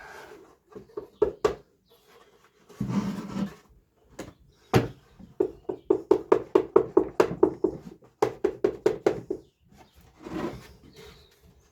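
Hammer tapping on a small wooden board, with one sharp strike and then two quick runs of light, evenly spaced taps, about four to five a second, as the piece is knocked down flush.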